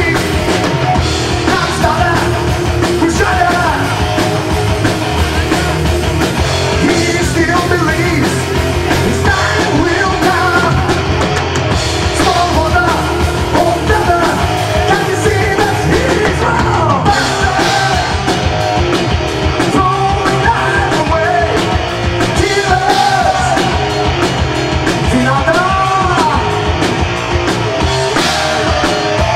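Heavy metal band playing live: electric guitar, bass guitar and drum kit, with a man singing lead.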